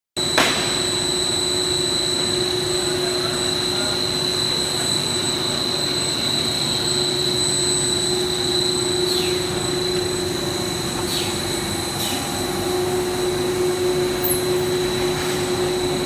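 PVC buckle-plate extrusion line running: a steady machine drone with a constant high whine and a lower hum, and two brief falling swishes past the middle.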